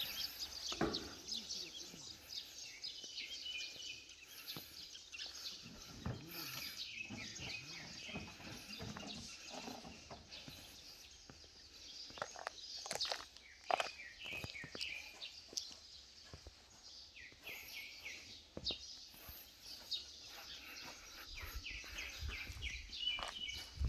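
Birds chirping and calling, with faint outdoor background noise and a few soft knocks in the middle.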